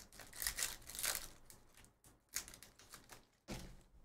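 Foil trading-card pack wrapper being torn open and crinkled by hand, a run of crackly rustling that comes in bursts, then the cards inside being handled.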